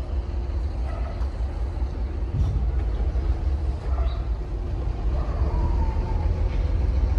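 A steady low rumble with a few faint clicks and knocks.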